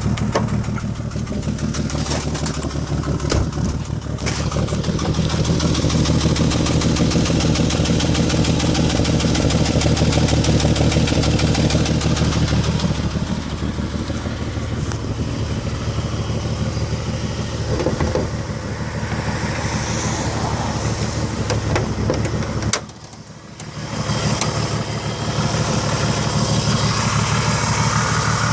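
1991 Nissan Maxima's V6 engine running steadily, with a few sharp clicks early on and a sudden drop-out of about a second about three-quarters of the way through. This is the random noise the owner is chasing, which new plugs, wires, distributor cap and rotor have not cured.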